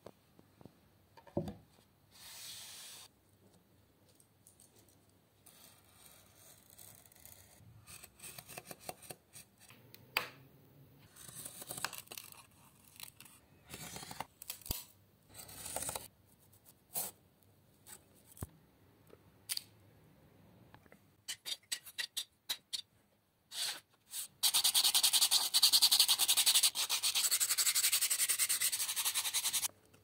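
Blade strokes scraping through a thin wooden sheet, short and scattered, with small clicks as the wood is handled. About 24 seconds in, sandpaper is rubbed steadily back and forth across a small square of the wood for about five seconds, the loudest sound.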